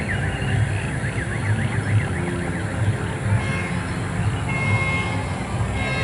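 An electronic siren warbling fast, its pitch swinging up and down about four times a second, then several short high toots, over a steady low rumble.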